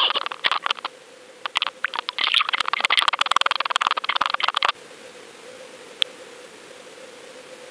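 Water noise picked up by a GoFish Cam line-mounted camera as a hooked largemouth bass thrashes near it: crackling bursts of rushing water with many sharp clicks that stop abruptly about five seconds in. After that comes a faint steady hiss with a thin steady tone, and a single click about a second later.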